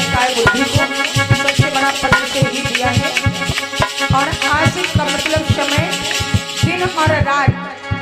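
Instrumental stretch of a Hindi devotional bhajan. A hand drum beats a quick, steady rhythm under a sustained melodic accompaniment, with a shaker-like rattle on top.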